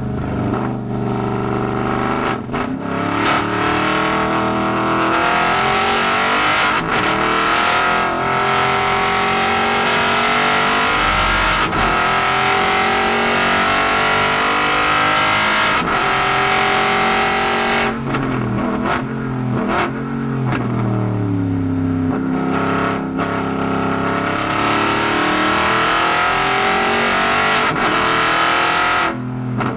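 Aston Martin Vantage GT4's V8 engine heard from inside the cabin, accelerating hard with its pitch climbing and dropping at several upshifts. About eighteen seconds in it falls through downshifts under braking, then pulls hard again near the end.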